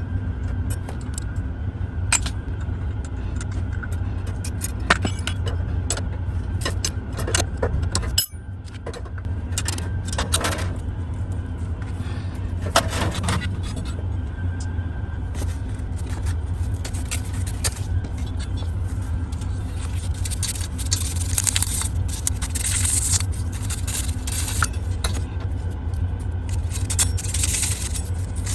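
Metal clinking, tapping and scraping, like tools and parts being handled, over a steady low hum.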